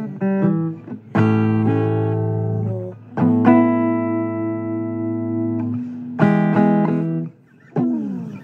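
Guitar playing a slow blues phrase: notes and chords plucked and left to ring, one held for a couple of seconds, with a downward slide near the end.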